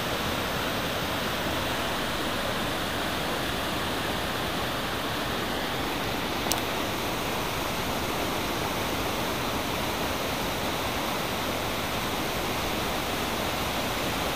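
River whitewater rushing steadily down a cascade over granite rock, a continuous even rush. One brief click about six and a half seconds in.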